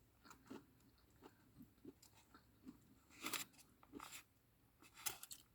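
Close-up chewing of crunchy food, deep-fried prawn or crisp stir-fried vegetables, with scattered faint crunches and mouth clicks and a few louder crunchy bites about three seconds in and near the end.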